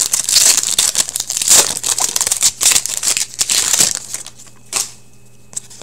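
Shiny foil wrapper of a 2015-16 Upper Deck Series 2 hockey card pack being opened and crumpled in the hands: a dense crinkling that stops about four seconds in, followed by a couple of brief rustles.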